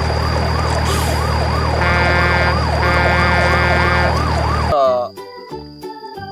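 A fast up-and-down siren wail over a steady low engine hum, with two long horn blasts in the middle. It cuts off suddenly about five seconds in, and music follows.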